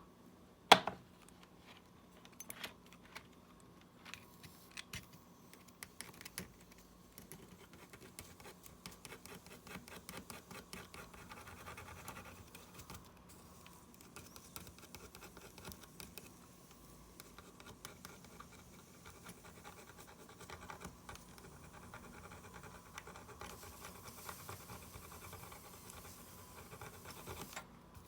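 Small repair tools scraping, picking and clicking against the parts of a smartwatch during disassembly, with one sharp click about a second in, over a faint steady hum.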